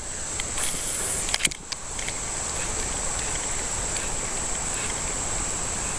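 Steady rush of a shallow mountain stream, with a steady high-pitched insect drone over it. A brief hiss and a couple of clicks come in the first two seconds.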